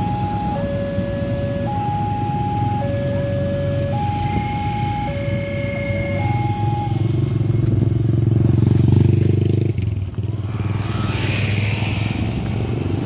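Level-crossing warning alarm sounding an alternating two-note chime, a low and a higher note of about a second each, which stops about seven seconds in as the crossing reopens after a train. Under it motorcycle engines run and then ride past close by, loudest around nine seconds in.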